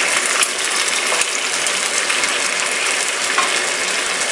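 Tomatoes and cream sizzling steadily in a frying pan, with a few light clicks of a spatula against the pan.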